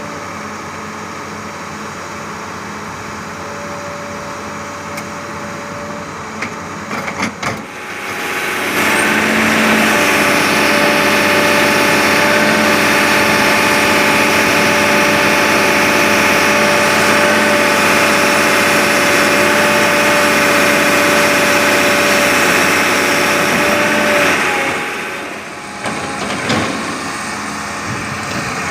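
Sumitomo S280 excavator's diesel engine and hydraulics running with a steady whine. It comes under heavier load and louder about eight seconds in, holds there, and eases back near the end. A few short knocks come just before the rise and just after it eases.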